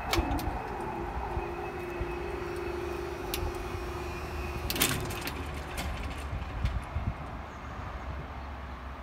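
Level crossing barrier motor running with a steady hum as the barrier booms rise, starting with a click and stopping with a clunk about five seconds in.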